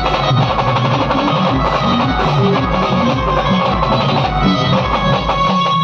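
Band music: a plucked string instrument carries the melody over steady drum beats.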